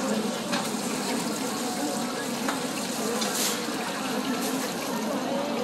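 Mung bean pancakes (bindaetteok) frying in a shallow griddle of hot oil, a steady sizzle, with a few brief metal spatula sounds against the pan.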